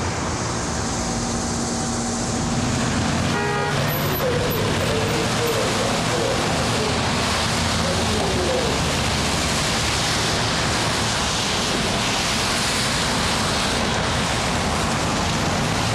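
Road traffic passing on wet pavement: cars drive by with a steady hiss of tyres on the wet road, swelling a few seconds in. There is a short tone about three and a half seconds in.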